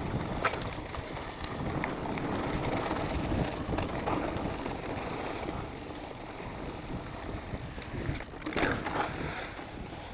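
Mountain bike riding over a dirt trail: wind buffeting the microphone over the rumble of knobby Maxxis Minion tyres on dirt and the rattle of the bike, with a few sharp clatters, the loudest about eight and a half seconds in.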